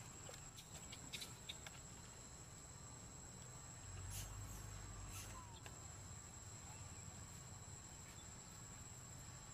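Faint outdoor ambience: a steady high-pitched insect drone, with a few soft clicks and a low rumble that swells slightly about four seconds in.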